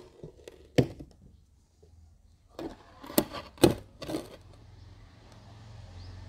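Sharp metal knocks and clunks of a car alternator being shifted and handled in a bench vise: one about a second in, then a quick run of four or five near the middle.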